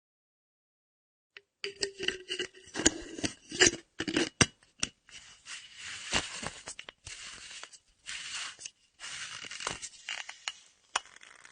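Empty metal flask's screw cap being turned on its threads: gritty scraping and sharp clicks, with a faint metallic ring. It begins about a second and a half in and goes on in short runs with brief pauses.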